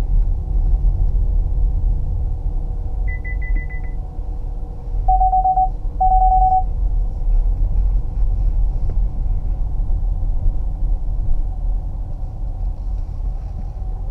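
Low, steady in-cabin rumble of the Opel Insignia's 2.0-litre four-cylinder biturbo diesel and tyres at slow speed. About three seconds in, a quick run of high pulsed beeps sounds, then two short lower beeps a second apart: warning beeps of the car's parking distance sensors as the walls come close.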